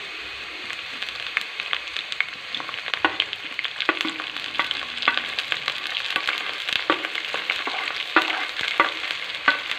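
Sliced onions, garlic and small prawns sizzling in hot oil in a karai, stirred with a wooden spatula. A steady hiss with scattered pops and crackles, which grow busier about three seconds in, once the prawns are in the pan.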